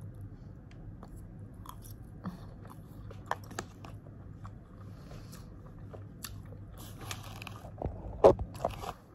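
A person eating close to the microphone: chewing, with small clicks of black plastic cutlery against a plastic food tray, and a few louder knocks near the end.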